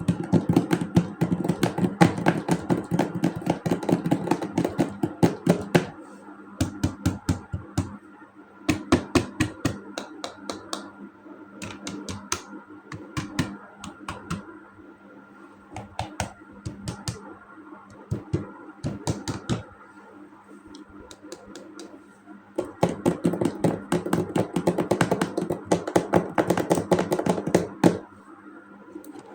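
Hands tapping, clicking and handling hard plastic toys and packaging: rapid flurries of clicks at the start and again near the end, with slower, spaced taps and clicks in between, over a faint steady hum.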